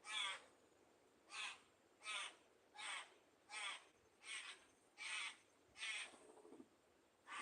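A bird giving a steady run of short, harsh, caw-like calls, about eight of them, roughly one every three-quarters of a second.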